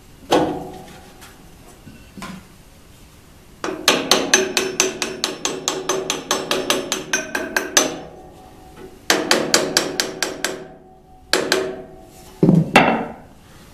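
Wooden mallet tapping a motor pulley along the shaft of a bandsaw motor, gently, to set its position. A few single knocks come first, then two quick runs of light taps, about five a second, each with a short metallic ring, and a few more knocks near the end.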